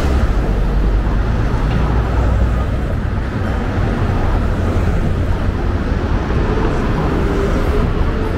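City street traffic: vehicles passing with a steady low engine rumble under a constant wash of road noise.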